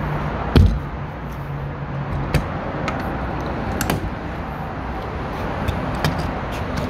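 Knocks and clicks of a motorhome's exterior storage-compartment door being handled, its latch released and the door swung open, over steady background noise. The loudest is a single thump about half a second in.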